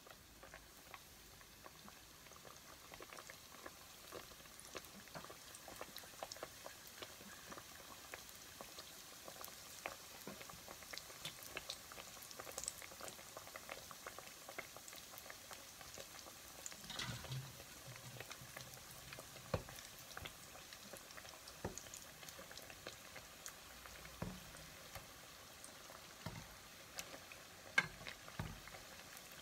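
Dough pinwheel puffs frying in hot oil in a non-stick pan: a faint steady sizzle dotted with many small pops and crackles. A sharp tap near the end as a metal slotted spatula goes into the pan.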